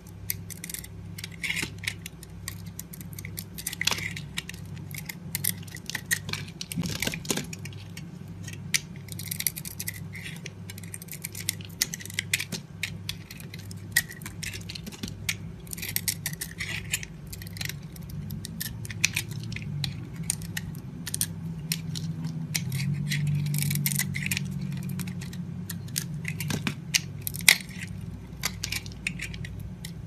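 A snap-off craft knife blade shaving and cutting dry bar soap: repeated crisp, crunchy scraping strokes as flakes and chunks break off.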